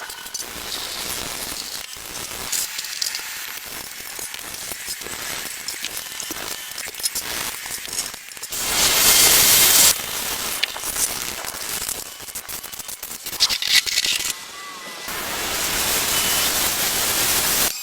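Workshop work sounds in short edited bits: crackling and rattling, then two spells of loud spraying hiss, one of about a second and a half in the middle and one of nearly three seconds near the end.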